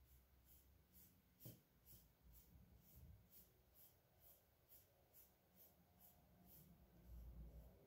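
Faint, soft scratching of a soft paintbrush dabbing oil paint onto the portrait's surface. The strokes come about two a second and stop near the end, with one sharper tap about one and a half seconds in.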